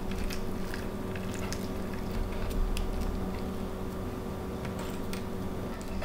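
Soft squishing and light, scattered clicks of hands rolling a raw chicken breast around ham and Swiss cheese on a wooden cutting board, over a steady low hum.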